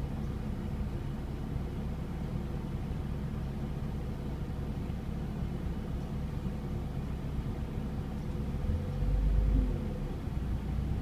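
Mazda MX-5 Miata NA6's 1.6-litre four-cylinder engine idling roughly with the air conditioning on, its low rumble swelling for about a second near the end. The owner traced the rough idle to an air bubble in the cooling system after fitting a new radiator.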